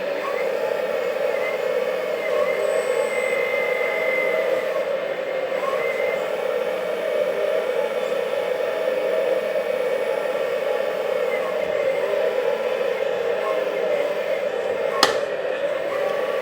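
Sound module of a LESU 9150 RC hydraulic excavator playing simulated engine and hydraulic sounds through its speaker, together with the model's hydraulic pump whirring steadily. There is one sharp click near the end.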